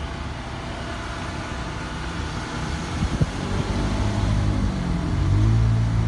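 A motor vehicle engine running close by, a low hum that swells louder from about four seconds in. A brief knock about three seconds in.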